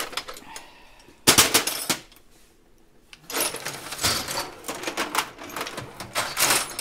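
Metal hand tools clattering in a red rolling tool chest's drawers as hands rummage through them. A loud burst of rattling comes about a second in, then a short pause, then dense, near-continuous clinking.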